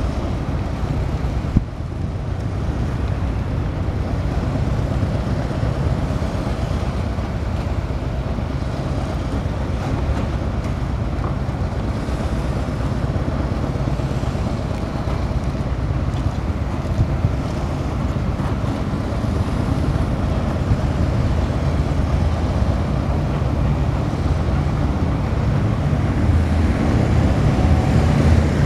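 Steady low rumble of vehicles driving slowly past on a city street, among them cars towing parade floats, with wind buffeting the microphone; the rumble grows louder near the end as a vehicle draws near. One sharp knock about a second and a half in.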